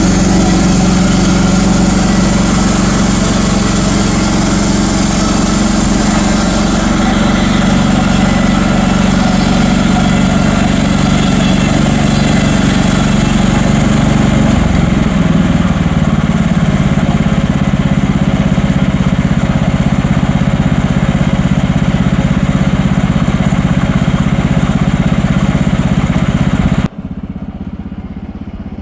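Sawmill engine running steadily under load while the saw cuts through a log. Its note shifts about halfway through, and near the end it drops suddenly to a much quieter idle.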